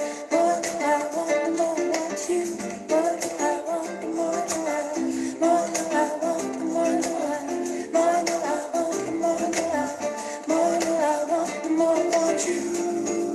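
Background music: an instrumental stretch of a pop song, with plucked strings over a light, steady percussion beat.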